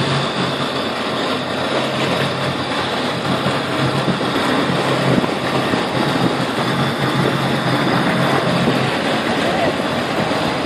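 A boat engine running steadily at low revs, an even hum with wind and water noise over it.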